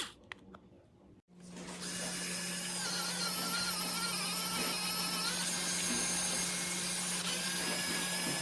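A few faint clicks, then the ARROWMAX SDS Ultra Plus electric mini drill starts about a second in and runs at a steady speed with a high whine.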